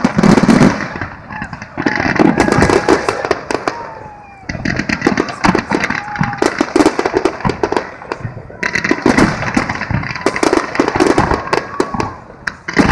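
Fireworks display: rapid, dense bangs and crackling bursts of aerial shells and fountains, with a brief lull about four seconds in.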